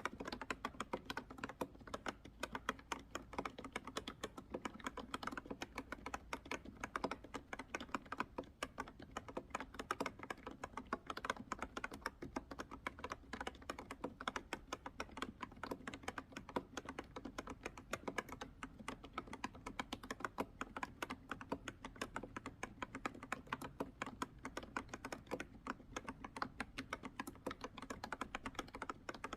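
Typing on a freshly lubricated Ekto B303 retro keyboard: a fast, unbroken stream of keystrokes, the lubrication damping the rattly 'chal-chal' chatter of the keys.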